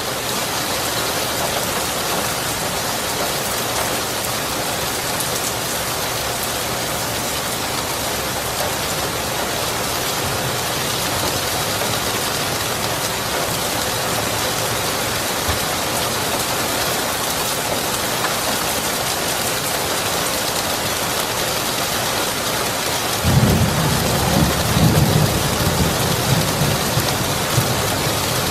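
Steady rain falling. About three-quarters of the way in, a deep thunder rumble starts suddenly and rolls on for several seconds; it is the loudest part.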